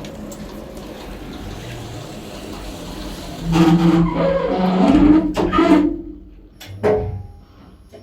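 Older KONE EcoDisc machine-room-less traction lift car travelling down: a steady hum, then a louder, wavering pitched squeal from about three and a half seconds in for a couple of seconds, and a single knock near the end.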